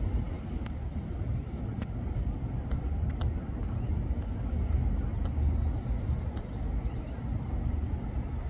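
Steady low outdoor rumble, with faint high chirping in the second half and a few soft clicks.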